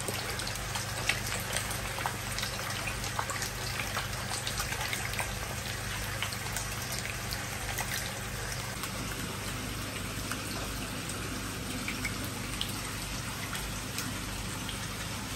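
Koi feeding at the surface of a crowded pond, many small splashes and sucking pops as they take floating pellets, over a steady rush of moving water and a low hum.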